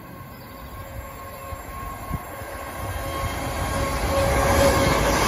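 A Class 450 Desiro electric multiple unit approaches and runs past, growing steadily louder. A steady whine of two tones sits above the rising rumble of wheels on rail.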